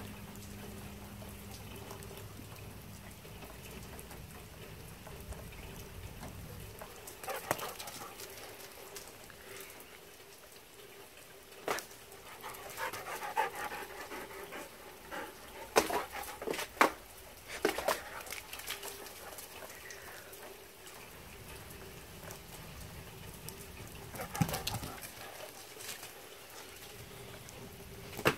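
A dog panting close by, over a steady hiss of falling rain, with a few sharp clicks now and then.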